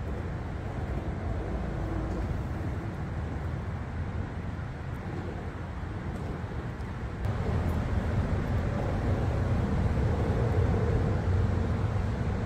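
Steady low rumble of road traffic on the highway bridge overhead. It grows louder about seven seconds in.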